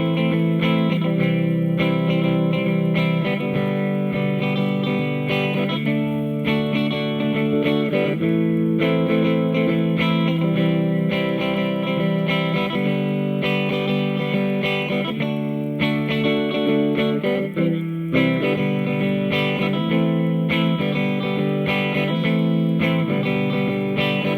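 Electric guitar played through a Hughes & Kettner Attax Metroverb 50-watt transistor combo amp, sustained chords and notes changing every second or so.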